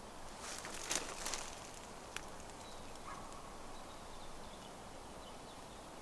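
Rustling and crackling of leaves and twigs in forest undergrowth for about a second, then a single sharp snap; after that only a faint steady hiss with a few faint high peeps.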